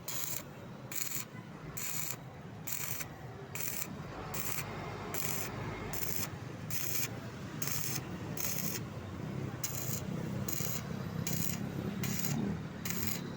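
Stick (arc) welding on steel, at about 80 amps, joining a C-purlin connector: a continuous crackling, frying hiss that swells in regular pulses about every two-thirds of a second.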